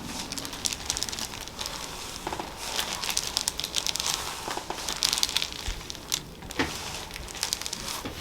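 Crinkly rustling in irregular bursts, made by the patient and chiropractor shifting and handling between spinal adjustments.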